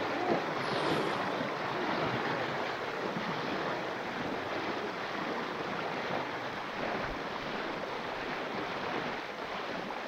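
Steady rush of a swollen mountain river running high after heavy rain: an even, unbroken water noise.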